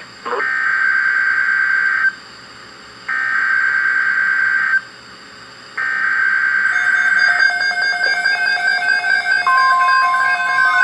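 Three buzzing bursts of the Emergency Alert System's digital SAME header data tones, each under two seconds, breaking into a weather radio broadcast. A stepping electronic multi-pitch tone pattern follows, and the steady 1050 Hz NOAA Weather Radio alert tone begins near the end, signalling an incoming severe weather alert.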